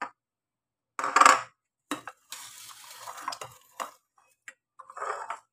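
Dishes clattering and scraping: a stainless steel bowl is knocked and scraped as food is picked from it by hand. There are a few separate clatters, the loudest about a second in, with a rougher stretch of scraping in the middle.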